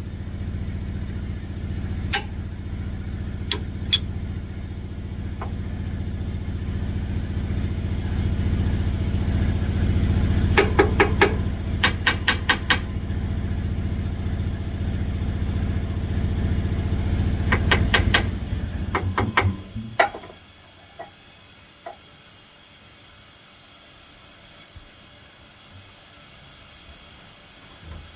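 An engine-driven sawmill edger running steadily, with two bursts of rapid rattling clicks, then shutting off about twenty seconds in; afterwards only a faint hiss with a few small ticks.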